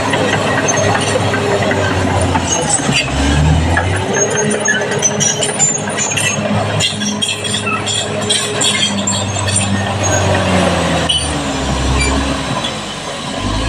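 Caterpillar D6R bulldozer working: its diesel engine running under load, the note dropping and recovering a few times, with clanking and rattling from the tracks and the material being pushed.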